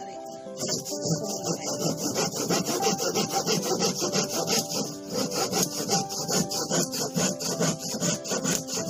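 Hand saw cutting through a thin wooden board, likely plywood, in quick rhythmic back-and-forth strokes. The strokes start about half a second in and pause briefly about five seconds in.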